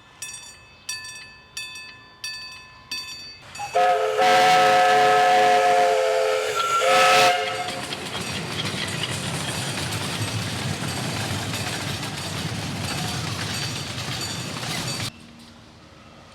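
A railroad crossing bell rings, about one strike every two-thirds of a second, as a miniature narrow-gauge train approaches. The train's whistle then sounds a long chord-toned blast and a short one; this is the loudest part. The train then rumbles past on the rails until the sound cuts off abruptly near the end.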